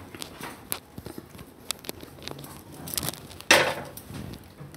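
Cooked fig paste being scraped out of a kadai onto a steel plate: small clicks and scrapes of the spatula and pan rim against the metal, with a louder scrape about three and a half seconds in.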